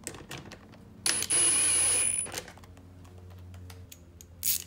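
Light clicks of bolts and tools being handled. About a second in, a cordless power driver runs for a little over a second, spinning a small bolt in. A second, brief burst comes near the end.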